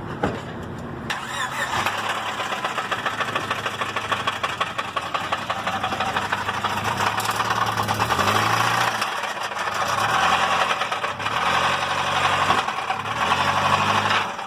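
Honda EK Civic engine running with a bad knock, a fast, loud ticking clatter that rises and falls as the engine is revved several times. The owners take it for rod knock from a failed connecting-rod bearing.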